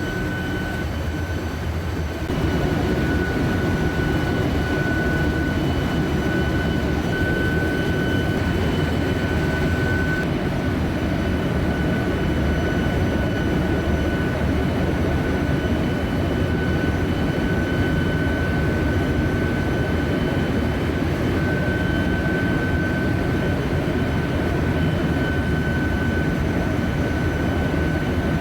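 Ship's engine-room machinery running: a steady low rumble with a constant high-pitched whine over it, getting louder about two seconds in.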